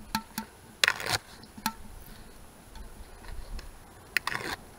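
Scattered sharp clicks and light knocks, bunched about a second in and again near the end, some with a short metallic ring. The sound comes from sticks of kindling being pushed into the firebox of a small wood stove made from a steel propane tank.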